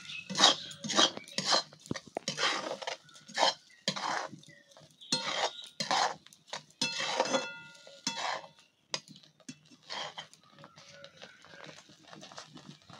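Spatula scraping and stirring a thick, grainy kalakand mixture in a metal kadai, in quick repeated strokes about two a second that grow sparser and quieter after the middle. The mixture is stirred constantly as it cooks down after the sugar goes in, so that it doesn't catch on the bottom.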